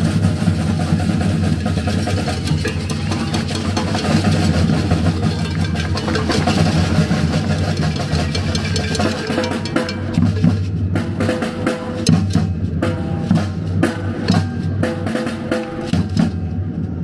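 Street percussion ensemble of rope-tuned bass drums, snare drums and beaded gourd shakers playing a steady, dense rhythm; about ten seconds in the bass drums thin out under the snares and shakers.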